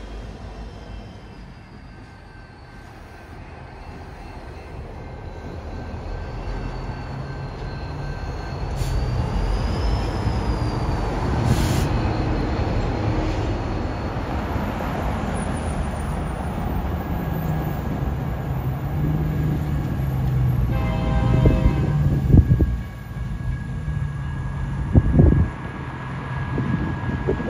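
BNSF diesel locomotives on a light-engine move, led by 3032, running toward the listener with a steady engine drone that builds over the first several seconds. The locomotive horn sounds for about two seconds about two-thirds of the way in and again near the end, with a couple of sharp knocks in between.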